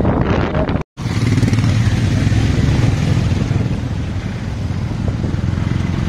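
Motorcycle engine running while the bike is ridden, with a brief gap in the sound about a second in.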